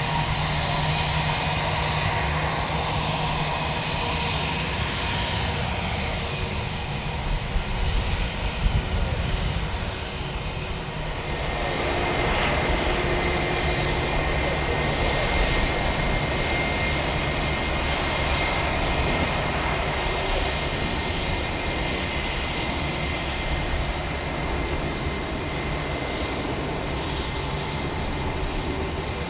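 Airbus A320-232 airliner's IAE V2500 turbofan engines during its landing, a steady jet rush with high whining tones. A few low gusty rumbles come about eight seconds in, and from about twelve seconds the rush grows broader and louder, with a steady whine.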